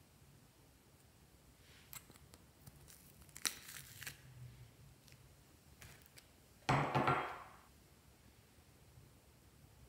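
Slime being peeled off a ceramic dish by hand, with small sticky crackles and clicks. About two-thirds of the way through comes a louder soft slap as the slime lands in a glass bowl.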